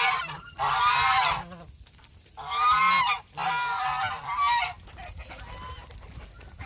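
Domestic geese honking, a run of loud calls over the first four and a half seconds, then quieter.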